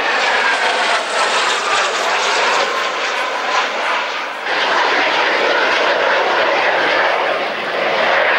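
Sukhoi Su-25's twin turbojet engines heard in flight overhead, a steady jet noise with a high whine that falls slowly in pitch over the first few seconds. About four and a half seconds in the sound changes abruptly to a fuller, denser jet noise.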